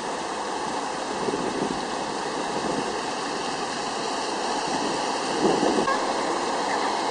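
Fountain jets falling into the basin: a steady rush of splashing water.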